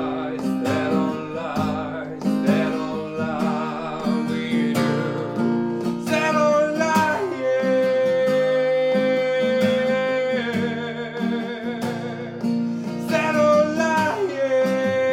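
A voice singing a song over acoustic guitar, with several long, wavering held notes.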